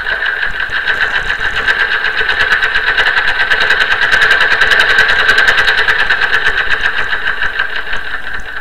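Sewing machine running at speed with a fast, even stitching clatter. It grows louder toward the middle and eases off near the end.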